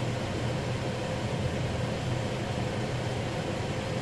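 Steady hum of a running motor, with an even rushing noise and a constant mid-pitched tone.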